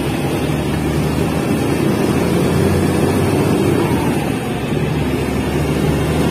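Dump truck's diesel engine running steadily under way, heard from inside the cab, with the rumble of the truck on a dirt road.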